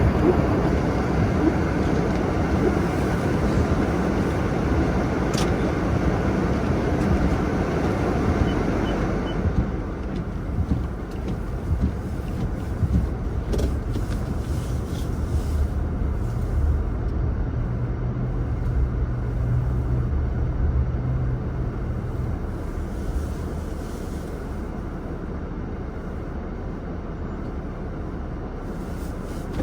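Car running with a steady low hum. A loud rushing noise over it for the first nine or ten seconds then drops away.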